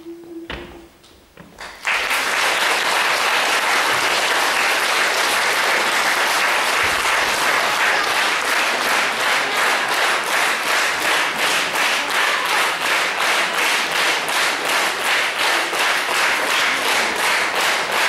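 The last held note of a mixed choir stops just after the start, and about two seconds in an audience breaks into loud applause. In the second half the clapping falls into an even rhythm, about two claps a second, as the crowd claps in unison.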